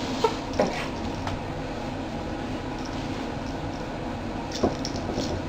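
Squeaky pet toy giving a few short squeaks: two quick ones near the start and one more about four and a half seconds in, over a steady low background rumble.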